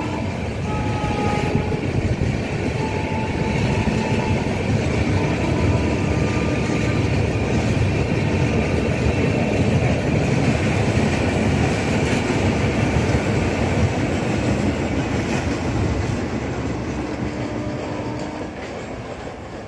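A rake of LHB parcel vans rolls past on a concrete rail bridge: a steady rumble of wheels on rails with clickety-clack. The sound fades over the last few seconds as the final coach goes by.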